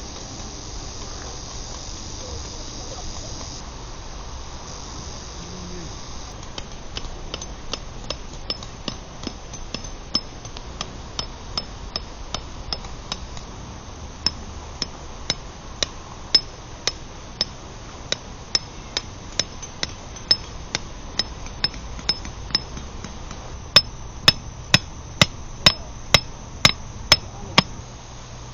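A hammer knocking in a steady series of sharp blows, about two a second. The blows start a few seconds in and become louder and a little quicker near the end, with insects chirping underneath.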